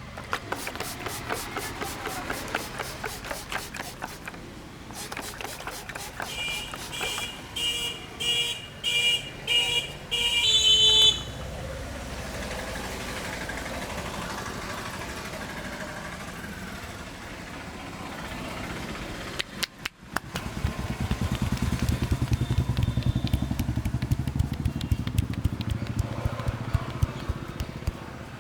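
Street traffic: fast, even tapping in the first few seconds, then a vehicle horn giving a run of short beeps, roughly two a second, ending in a longer, higher one. Later a motorcycle engine runs close by.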